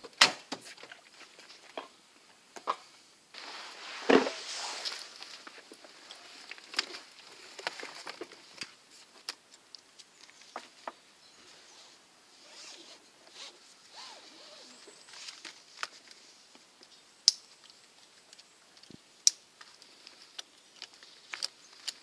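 Straps, zips and buckles on a Litheli FrozenPack backpack fridge being handled: rustling and rasping with scattered sharp clicks and knocks. The fridge is being strapped into a car's back seat.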